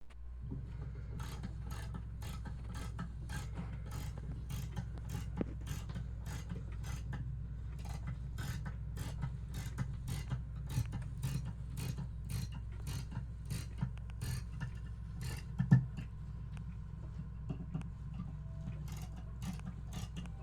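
Mechanical ticking, about two sharp clicks a second, over a steady low hum, with one louder knock near the end.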